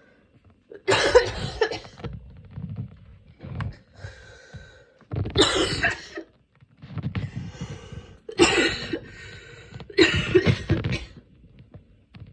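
A woman's coughing fit from a head cold: four bouts of several quick coughs each, with quieter breaths drawn in between. It is a painful chest cough that comes with the cold.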